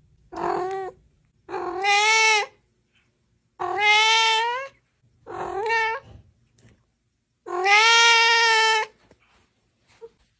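A cat meowing loudly five times in a row, long drawn-out meows of about a second each with short pauses between, the last one the longest.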